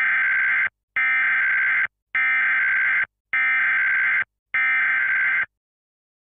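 Emergency Alert System digital data tones: a run of buzzy, modem-like electronic bursts, each about a second long with short gaps between them. Five bursts sound, then they stop.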